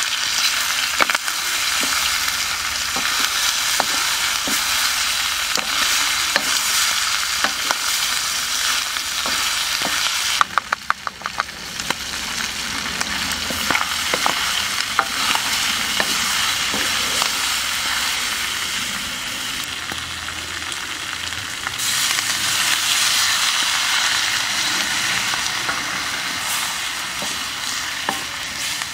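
Crocodile meat and green curry paste sizzling in a steel wok over a wood fire, stirred with a wooden spatula that scrapes and clicks against the pan. A quick run of sharp knocks about ten seconds in.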